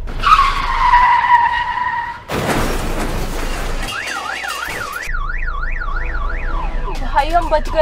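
Car tyres screeching for about two seconds in a hard handbrake stop, then a loud rush of noise, then an alarm-style siren warbling up and down about two and a half times a second.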